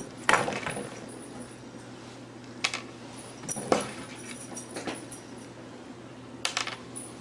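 A cat's paws tapping and knocking on a wooden tabletop as it swipes at a treat: a handful of sharp knocks spread out, the loudest about halfway through, over a steady low hum.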